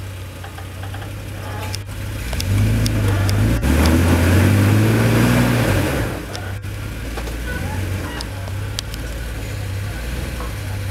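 Lifted Toyota Tacoma pickup's engine pulling at low speed as it crawls over a rutted dirt trail, growing louder and rising in pitch from about two seconds in for three or four seconds, then easing back to a steady low run. A few faint clicks are scattered over it.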